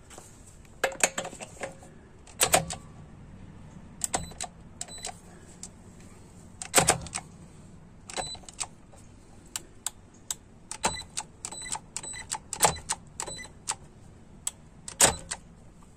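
Sharp metal clicks and clinks of a socket and the head of a Craftsman V20 cordless powered ratchet being fitted and worked on a car wheel's lug nut, with a couple of short bursts of the ratchet's motor straining against the tight nut. The ratchet cannot turn the nut, which it has reached its limit on.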